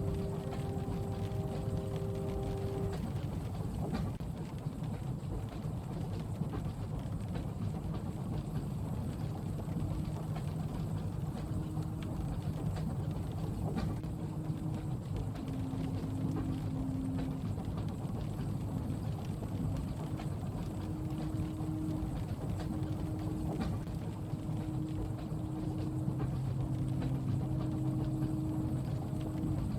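Night-train carriage ambience: the steady low rumble of a moving train with scattered faint clicks and a low hum that shifts in pitch, mixed with soft rain.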